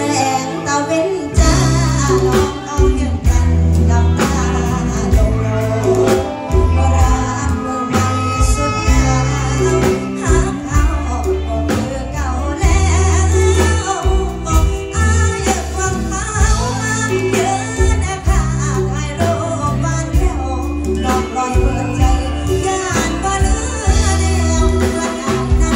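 Live band playing a Thai song: a woman sings into a microphone over electric guitar, drums and keyboard, with a strong, steady bass beat.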